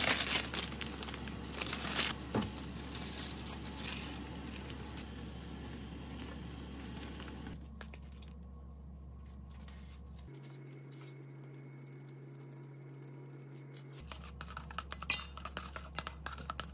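Water boiling in a yellow aluminium pot on a gas burner: a steady hiss with scattered clinks. After a quieter stretch with a faint steady hum, wooden chopsticks stir saucy instant noodles in the pot and clack repeatedly against its metal side.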